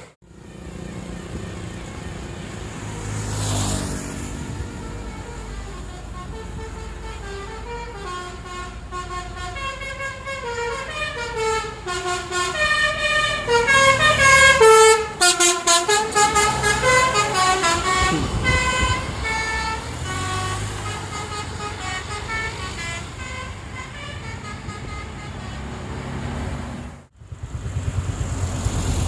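Tour bus's Basuri 'telolet' musical horn playing a tune of quick stepped notes for about ten seconds, over the low running of the bus engine.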